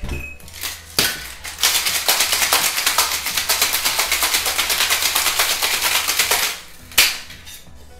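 Ice cubes rattling hard inside a two-tin metal cocktail shaker during a vigorous shake, in a fast, even rhythm of strokes for about five seconds. There is a click just before the shaking and one sharp knock near the end.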